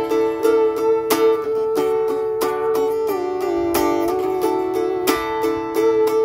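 Mountain dulcimer strummed steadily, two to three strums a second, a drone note ringing under a slow fretted melody.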